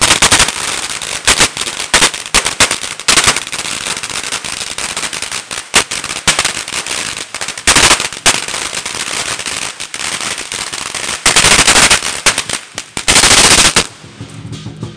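Chinese firecracker strings going off in a rapid, irregular crackle of sharp bangs, with several denser, louder volleys, about a second in, near the middle, and twice more near the end. The popping stops about a second before the end.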